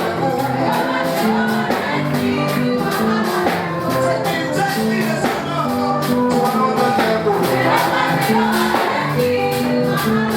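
Live upbeat gospel praise music: a church band plays with a steady driving beat of drum and percussion strikes, with singing over it.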